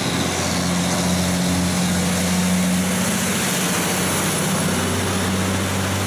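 Cab-over semi-truck hauling a shipping container, its diesel engine running steadily as it drives past on a wet road, with a constant hiss of tyres on wet asphalt.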